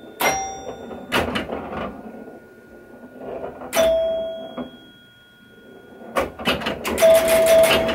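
Pinball chime box of a 1973 Williams Travel Time, fitted with Gottlieb chime bars, ringing during play: a few single chime notes that ring out and fade, then a fast run of chime strikes mixed with mechanical clacking from about six seconds on.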